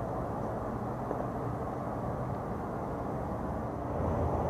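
Steady low outdoor background noise, a little louder near the end.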